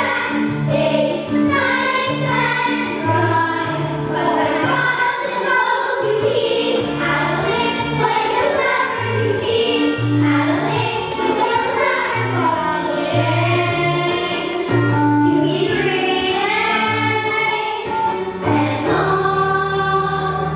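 Chorus of young voices singing a musical-theatre number over an instrumental accompaniment with a steady, stepping bass line. Near the end it closes on a long held chord.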